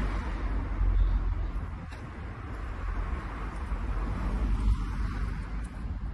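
Street ambience with distant road traffic: a steady low rumble and a hiss that swells and fades, as from a passing car.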